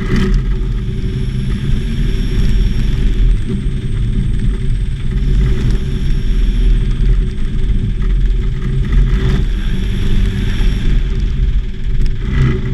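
Homebuilt Volksplane VP-2's engine and propeller running steadily at low power while the skiplane taxis on snow, heard from inside the open cockpit.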